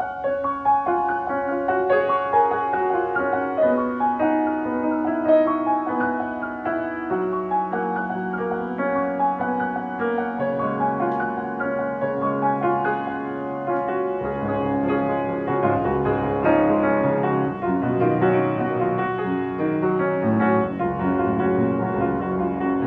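Instrumental piano music, a flowing line of notes with lower notes filling in about halfway through.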